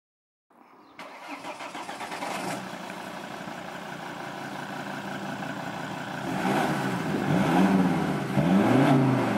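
Volvo S60 2.4 D5 five-cylinder turbodiesel running through a 3-inch stainless catback exhaust with no silencers, idling steadily. In the second half it is revved several times, the pitch rising and falling with each blip and the sound growing louder.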